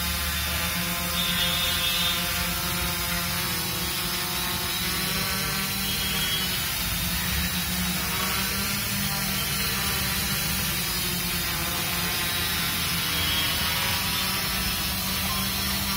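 Multirotor drone's electric motors and propellers droning steadily as it hovers under position and altitude hold, the pitch wavering slightly as the motors keep adjusting.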